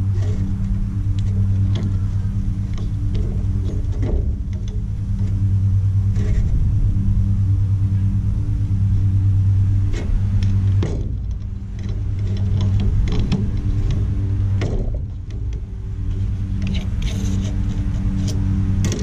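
A steady low engine-like hum with a little rise and fall, and scattered light clicks and clinks from a cordless angle grinder being handled while its disc is changed.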